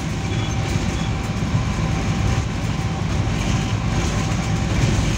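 Steady low rumble of a GE GEU-40 diesel-electric locomotive running at speed, heard from inside its cab, with a faint steady high tone above it.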